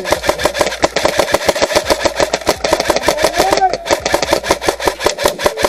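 Airsoft electric rifle firing on full auto: a rapid, steady string of shots, about ten a second, over the whine of the gun's motor and gearbox.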